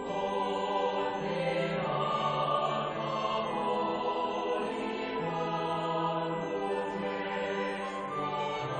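Background choral music: a choir singing long held notes that change slowly.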